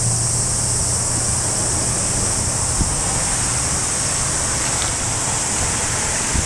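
Fukui Railway 200-series tram approaching a station: steady running noise with a low hum that fades after about two seconds, under a constant high hiss.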